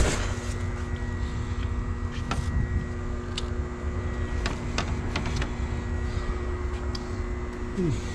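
Steady low mechanical rumble with a constant hum, like an idling engine or machinery, with a few faint clicks and a short falling whine near the end.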